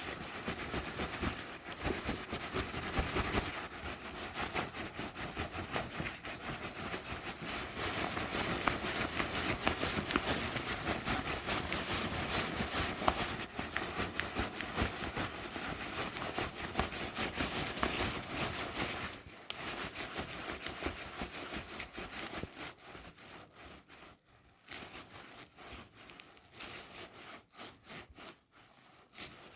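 Osprey Aether 60 backpack being handled and flexed. Its fabric and straps rustle and rub with many small clicks, and there is no squeak from the wire frame, whose ends are now sleeved in heat-shrink tubing. The rustling grows quieter and patchier after about two-thirds of the way through.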